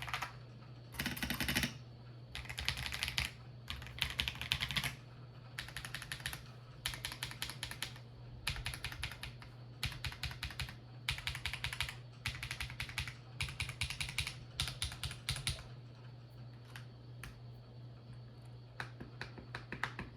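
Typing on a Feker IK75 V5 mechanical keyboard fitted with lubed Akko CS Lavender Purple tactile switches and Akko keycaps. Quick runs of keystrokes come with short pauses between them, thinning to scattered single presses about 16 seconds in. A steady low hum lies underneath.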